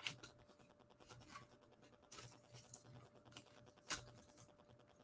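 Near silence with faint rustles and light taps of trading cards being handled and set down on a table, with a sharper tap near the end.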